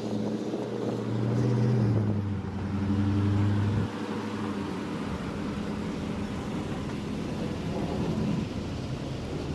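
Motor vehicle engine running with a steady low hum; the deepest part of the hum drops away about four seconds in.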